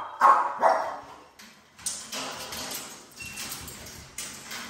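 A dog barks twice, loud, in the first second. From about two seconds in comes quieter scuffling with clicking, like dogs' claws on a hard floor.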